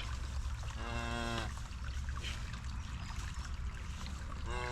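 Cattle mooing twice, each a steady, level call of under a second, the second starting near the end.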